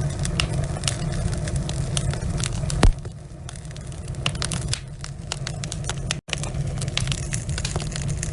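Log fire burning in a fireplace, crackling with many sharp pops over a low rumble of flames. One loud pop comes about three seconds in, and the sound cuts out for an instant about six seconds in.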